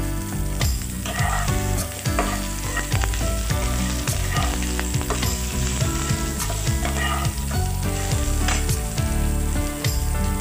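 Moringa drumstick pieces sizzling in hot oil in a non-stick frying pan, being stirred and turned with a metal spatula that clicks and scrapes against the pan.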